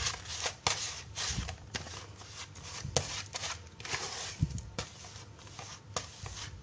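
Dry, crumbly fishing-bait mix of fish pellets being stirred and scraped around a plastic basin, in irregular scratchy strokes.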